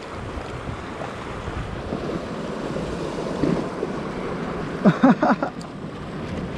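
Wind buffeting the microphone over the steady wash of the sea, with a few short pitched vocal sounds about five seconds in.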